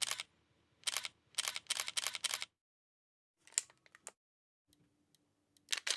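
Camera shutter clicks, one after another: a single click at the start, another about a second in, a quick run of four, fainter ticks in the middle and two more near the end.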